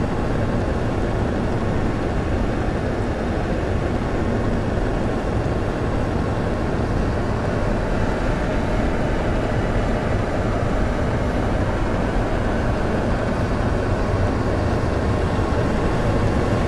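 A steady low rumbling drone that does not change, with a faint hiss above it.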